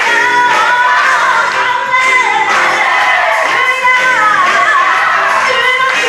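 Gospel choir singing live with instrumental backing, a lead singer's voice sliding over the choir.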